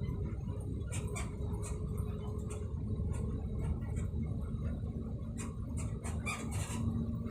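Steady low rumble of a vehicle on the move, heard from inside, with a faint engine hum and many small clicks and squeaks scattered through it.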